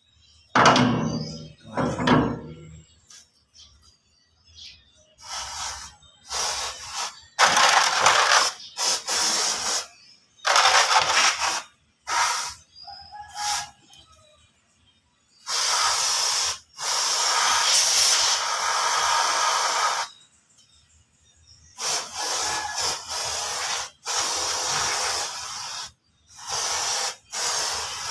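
Aerosol brake cleaner hissing as it is sprayed through its straw onto a brake disc rotor and hub, in repeated short blasts with one long steady spray of several seconds in the middle. Some loud handling clatter comes in the first couple of seconds.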